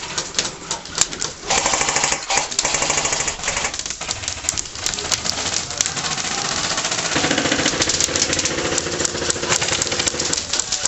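Airsoft electric rifles firing on full auto: a fast, continuous mechanical rattle. It comes in scattered clicks at first and then runs unbroken from about a second and a half in.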